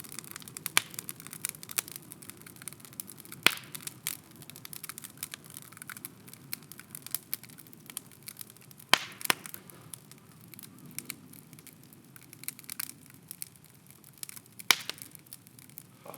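Bonfire of scrap timber crackling with irregular sharp pops, a few much louder ones about a third of the way in, around the middle and near the end, over a low steady rush of burning.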